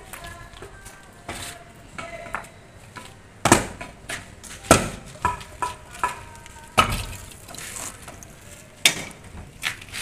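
Hammer knocks on lightweight aerated concrete (AAC) blocks as they are tapped and set into a wall: about half a dozen sharp, irregularly spaced knocks, the loudest a little past the first third.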